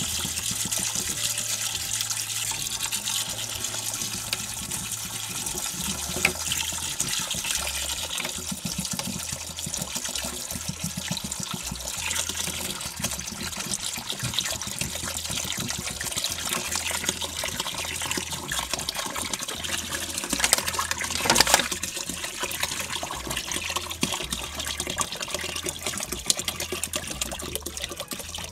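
Water poured from a plastic bottle into a glass tank, running and splashing onto rock and gravel substrate as the tank is filled. It gets briefly louder about three quarters of the way through.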